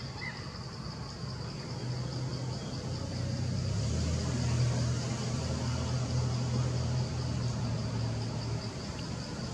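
A motor vehicle's low engine hum begins about a second and a half in, swells and fades, and stops near the end. Under it runs a steady, rapidly pulsing high insect drone.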